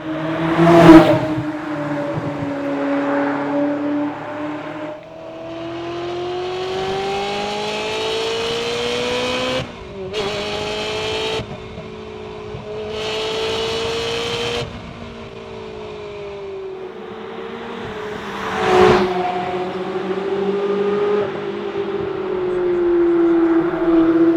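Ferrari 360's 3.6-litre V8 pulling through the gears of its gated manual gearbox. The engine note climbs steadily and drops sharply at each upshift, several times over. There are two sharp loud cracks, about a second in and again near the end, the first being the loudest moment.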